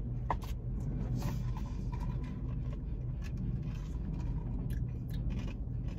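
Car engine idling, a steady low hum heard inside the cabin, with a few faint clicks from a plastic iced-coffee cup being handled.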